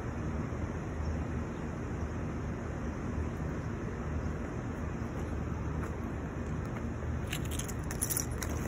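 Steady low outdoor background rumble. Near the end come a cluster of small clicks and rustles as the phone and fishing rod are handled.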